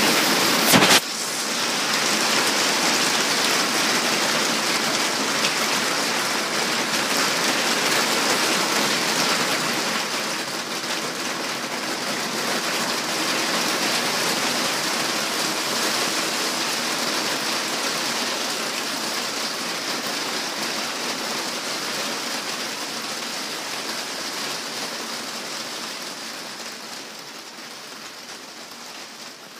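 Heavy rain pouring down, a dense steady hiss of rain falling on the street and surfaces, growing gradually quieter over the last few seconds. A single brief knock sounds about a second in.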